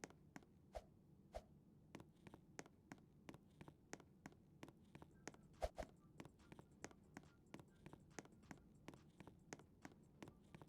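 Faint quick clicks, about three or four a second and unevenly spaced, with a few louder knocks about a second in and near the middle.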